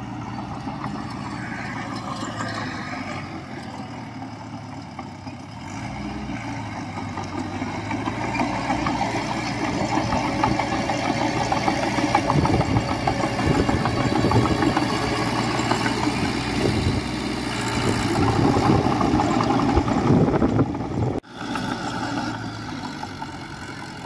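Heavy diesel engine of earthmoving machinery running, with steady low engine tones that grow louder and rougher from about a third of the way in. The sound drops out suddenly for a moment about three-quarters of the way through, then the engine runs on more quietly.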